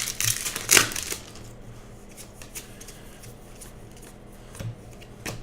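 Trading cards being handled and sorted by hand: a few sharp card clicks and slaps in the first second, then quieter handling, with a couple more clicks near the end.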